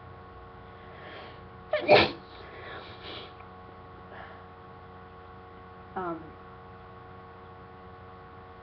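A single loud sneeze about two seconds in, from a person with a head cold, with a brief breathy build-up and breathing after it. A short vocal sound, falling in pitch, comes about four seconds later.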